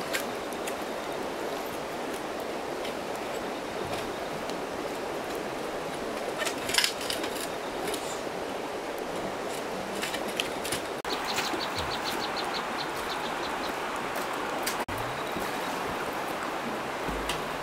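Steady rush of flowing water, with a sharp splash about seven seconds in.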